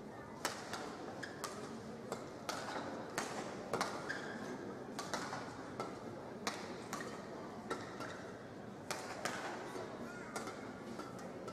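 Badminton rally: a steady run of sharp cracks as rackets strike the shuttlecock, with short squeaks of players' shoes on the court mat over the murmur of an arena crowd.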